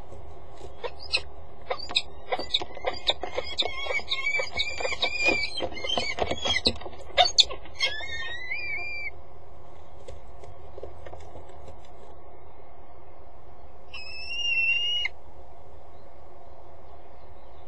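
Peregrine falcons calling: a rapid string of sharp, high calls over several seconds, then one longer held call about a second long near the end, over a steady low background rumble.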